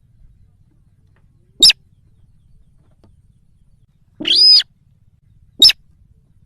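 Recorded call of the sintar bird, used as a hunting lure: three loud calls, a short sharp note about one and a half seconds in, a longer note around four seconds, and another short sharp note near the end.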